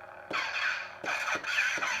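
Prizm 5.1 lightsaber soundboard playing a blade sound font through the saber hilt's speaker. The sound comes in sharply about a third of a second in and carries on as a hum with several quick swing whooshes that fall in pitch.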